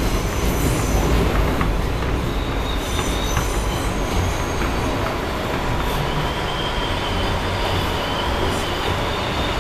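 Inside a moving R160B subway car: the car's steady running rumble on the track, with faint high-pitched wheel squeal coming and going and a few sharp clicks.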